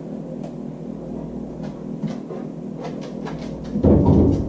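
Refrigerator door being tugged open by a dog: light clicks and scuffs, then a loud, low rumbling knock and rattle near the end as the door swings.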